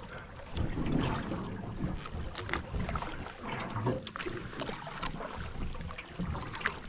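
Paddles stroking and splashing in the water beside an aluminum canoe, with a few light knocks and wind rumbling on the microphone.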